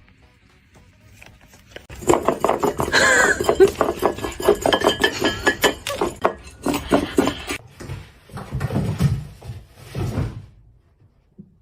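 A rapid run of clattering, clinking knocks of hard objects, like dishes or utensils being rattled, followed by a few duller knocks.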